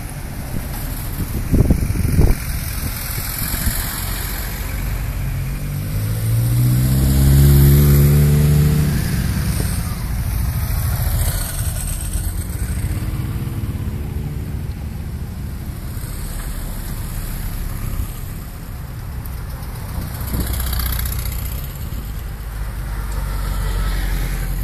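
Vehicles driving past one after another: a WWII army jeep's engine, then an engine revving up with a rising note, loudest about seven to nine seconds in, and a red sport motorcycle accelerating away around twelve seconds in, over a steady low rumble. Two short thumps come near the start.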